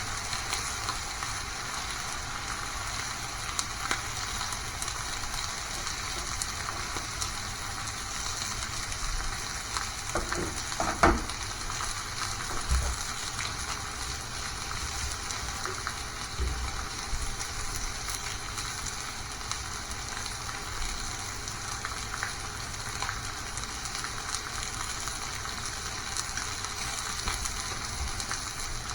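Food sizzling steadily in a frying pan, with a few knocks, the loudest about eleven seconds in.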